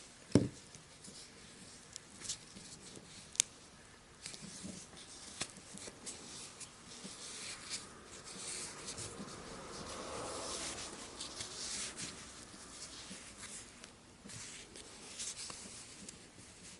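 Small knife parts being cleaned by hand: scratchy rubbing and wiping, strongest about halfway through, among scattered small clicks and taps of parts on a hard surface. A knock about half a second in is the loudest sound.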